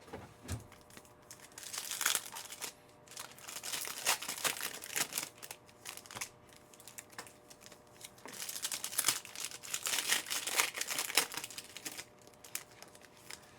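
Wrappers of Panini Certified football card packs crinkling and tearing as packs are ripped open and the cards handled. The rustle comes in two stretches with a quieter gap between.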